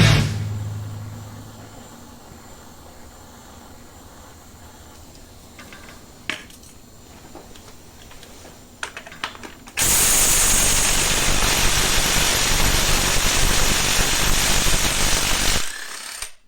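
Background music fades out, then a few light clicks of tool handling. About ten seconds in a power tool runs loudly and steadily for about six seconds and stops, loosening a very tight bolt on the engine's crankshaft nose.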